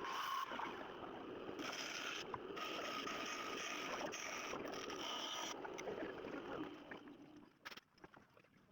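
Band saw running and cutting wood: a steady whir with a faint whine. It dies away about seven seconds in.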